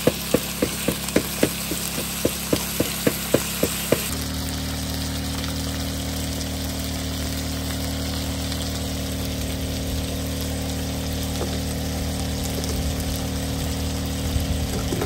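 A spoon stirring meat in an electric skillet, knocking and scraping against the pan about three times a second for the first four seconds. Then a steady low mechanical hum takes over under a faint sizzle.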